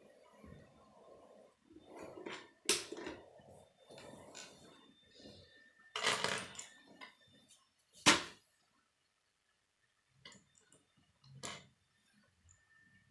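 Loose plastic K'nex pieces clattering and clicking against each other and a wooden tabletop as hands rummage through a pile, with a few sharp clacks, the loudest about three and eight seconds in.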